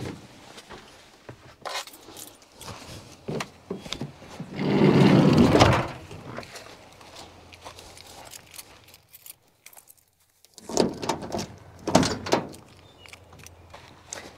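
Keys jingling and small clicks, then a cargo van's sliding side door rolling shut for about a second and a half, about five seconds in. Near the end, two short clunks as the van's rear doors are unlatched and swung open.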